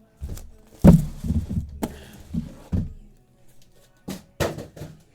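Thumps and knocks of things being handled on a tabletop, with rustling between. The loudest thump comes about a second in, and two quick knocks come close together near the end.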